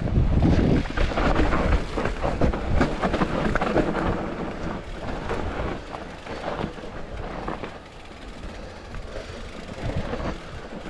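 Mountain bike running down a dirt trail: tyres rumbling over the ground and the bike rattling and knocking over bumps, loudest in the first couple of seconds and easing off after about six seconds.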